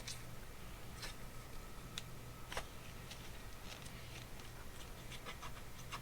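Scattered faint clicks and light taps of small metal carburettor parts and hand tools being handled on a workbench, a few single clicks spaced about a second apart and then a quicker cluster near the end, over a low steady hum.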